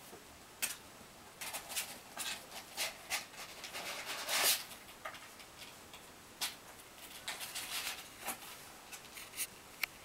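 Kittens' claws scratching and scrabbling at a cardboard box wall as they climb it: a series of short, irregular scratches, the longest about four and a half seconds in.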